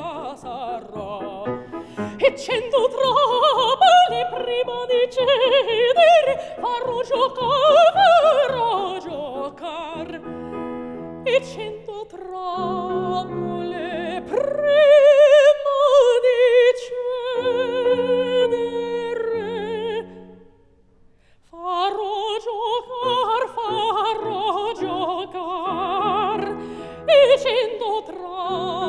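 A woman's operatic voice singing with wide vibrato, accompanied by a grand piano. About ten seconds in the piano plays briefly on its own, and about twenty seconds in both stop for a moment before the singing resumes.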